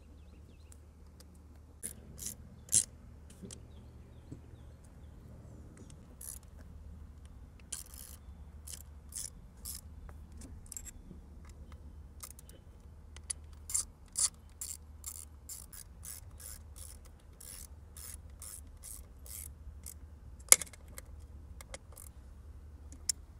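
Ratchet wrench clicking in runs of short clicks, about two a second, with pauses between runs, as the throttle body bolts are tightened down.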